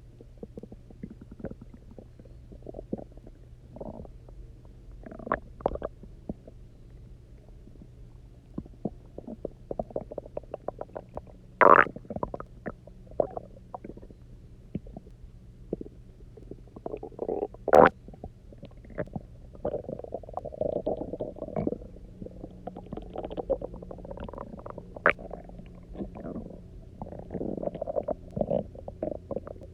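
A person's empty stomach rumbling and gurgling, full of water drunk after about 24 hours without food: an irregular run of gurgly bubbling and small clicks, with two much louder sharp squelches about 12 seconds in and again about 6 seconds later.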